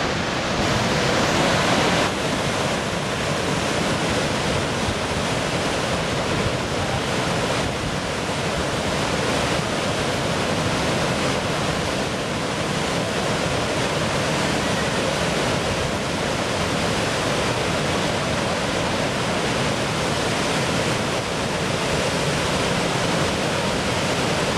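Horseshoe Falls at Niagara: a steady, dense rush of water pouring over the crest, a little louder for the first two seconds.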